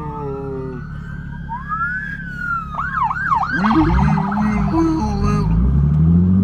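An emergency-vehicle siren sounds: a slow rising-and-falling wail, then quick up-and-down yelps and a fast warble from about three seconds in. Under it the Nissan 370Z's V6 runs through a Tomei Expreme catback exhaust, climbing steadily in revs from about four seconds in.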